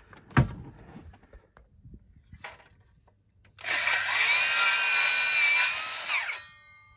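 A sharp knock near the start, then a handheld circular saw cutting through a 1x1 pine board. The saw's loud whine runs for about three seconds from about halfway in, then winds down.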